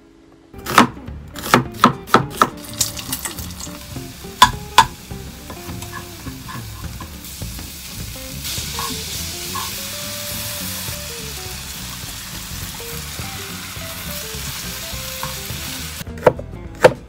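Stir-frying in a wok on a gas burner: a spatula knocks and scrapes the pan for the first few seconds, then meat and onions sizzle steadily. About a second before the end, a kitchen knife starts chopping garlic on a plastic cutting board with a few sharp strikes.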